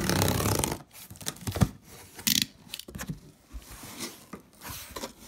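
A blade slitting the packing tape along a cardboard box's seam, a brief loud zipping tear, followed by the cardboard flaps being pulled open with scraping, rustling and a sharp click.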